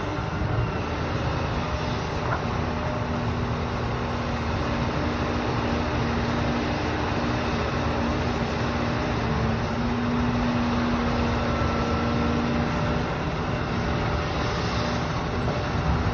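The diesel engines of a Cat 374 Next Gen excavator and a Cat 745 articulated dump truck run steadily under working load, with a low engine tone holding throughout.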